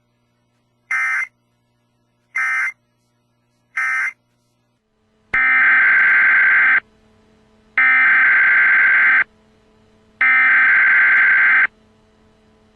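Emergency Alert System SAME digital data bursts: harsh, buzzing modem-like screeches. Three short bursts about a second and a half apart (the end-of-message code) come first. Then, after a change in the background, three longer and louder bursts a second apart follow, the header that opens the next alert.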